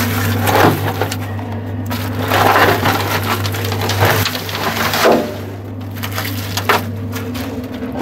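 Broken concrete rubble crunching and scraping inside a steel concrete mixer drum, in irregular bursts, over a steady low hum.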